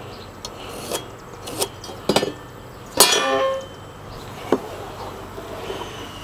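A few sharp knocks and clatters of lumber and tools during deck work. The loudest, about three seconds in, rings briefly. A short falling squeak comes near the end.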